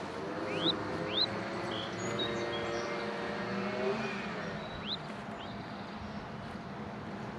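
A motor vehicle's engine running, its pitch drifting a little, then fading out about four seconds in, over a low steady hum. Short, sharp rising bird chirps come through four times.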